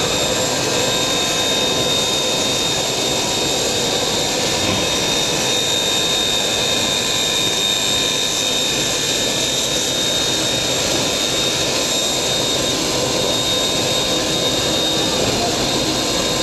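A steam locomotive standing on a turning railway turntable gives a steady hiss with a constant high-pitched whine running through it, together with the turntable's drive. The sound is loud and even, with no breaks.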